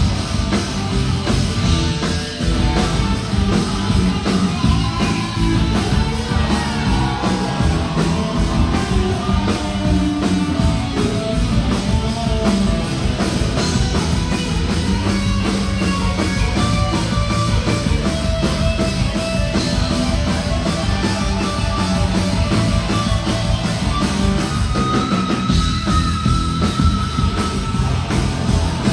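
Rock band playing live: drum kit, bass and distorted electric guitars in a steady heavy groove, with a long held lead note near the end.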